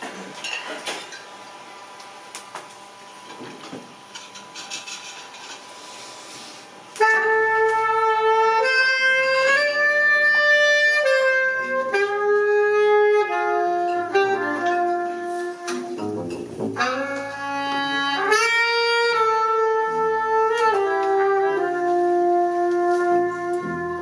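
Saxophone and trumpet playing a slow jazz melody together over upright bass, coming in loud about seven seconds in after a few quiet seconds, with held notes moving step by step.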